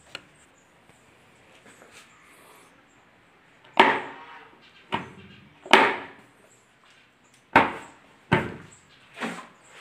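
A series of six sharp knocks on wood, each with a short ringing tail, irregularly spaced about a second apart in the second half. They come from a plywood cabinet door fitted with concealed hinges being handled and knocked about.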